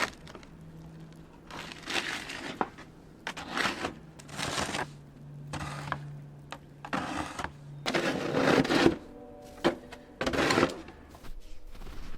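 Snow crunching and swishing in a run of irregular strokes, about eight in all, as a body sweeps arms and legs through it to make a snow angel.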